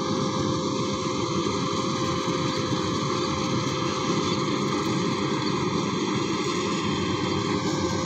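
Rice combine harvester running steadily as it works the muddy paddy, its engine and machinery making a constant, unchanging drone with one steady tone in it.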